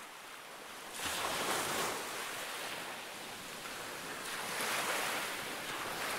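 Ocean surf: waves breaking and washing in, swelling once about a second in and again near the end.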